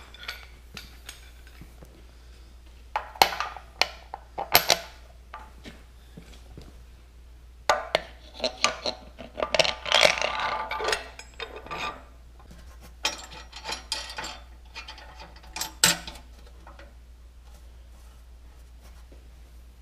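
Metal clinking, knocking and scraping as lathe-turned alignment discs and a 5/8 threaded rod with nuts and washers are fitted by hand into the bearing bore of a cast-iron tractor rear end housing. The sharp clinks come scattered, with a longer burst of rattling and scraping around the middle.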